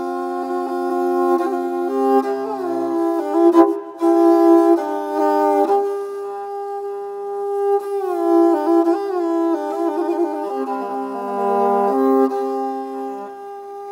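Music: a held drone note under a melody that slides and wavers in pitch, changing notes every second or so.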